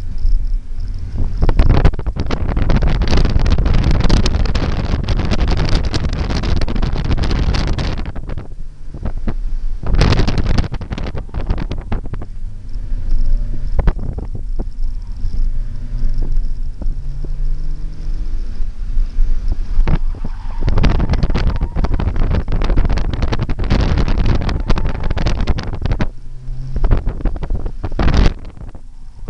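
Heavy wind buffeting on the microphone through the Ford Fiesta's open front windows, over its four-cylinder engine accelerating and easing off on an autocross course. The buffeting drowns most of it; in a calmer stretch in the middle the engine note is heard rising in pitch several times.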